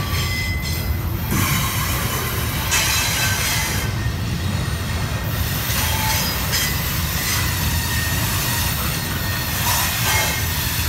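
Double-stack intermodal well cars of a CSX freight train rolling slowly past: a steady low rumble of wheels on rail, with brief thin wheel squeals now and then as the cars round the curve.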